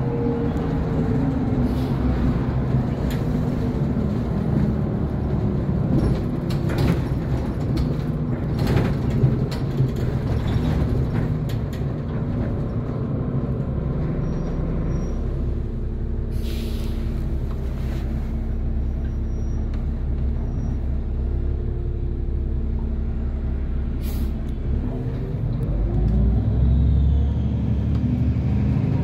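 Cab sound of a SOR NB 12 city bus under way: engine and road noise, with the engine settling to a lower steady note as the bus slows in traffic. There is a short hiss of air from the brakes about halfway through and another a little later, and the engine pulls up again near the end as the bus moves off.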